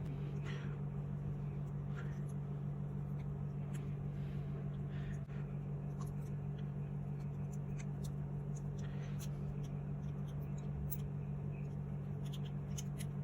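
Steady low hum throughout, with faint scattered clicks and ticks of small metal airsoft pistol parts being handled as the safety is worked out of the trigger chassis.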